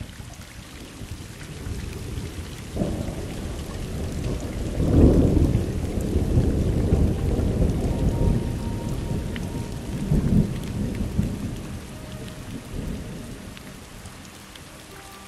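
Rolling thunder over steady rain: a deep rumble builds about three seconds in, is loudest around five seconds, swells again near ten seconds, then dies away toward the end while the rain goes on.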